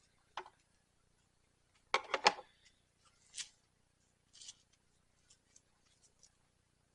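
Scissors snipping while trimming up a sewn leather belt: a quick cluster of sharp snips about two seconds in is the loudest sound, with a single click before it and softer rustling sweeps and light ticks after.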